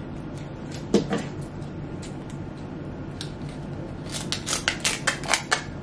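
Kitchen scissors snipping through the shell of a cooked king crab leg: a quick run of sharp snips and cracks in the last couple of seconds, after a single short knock about a second in.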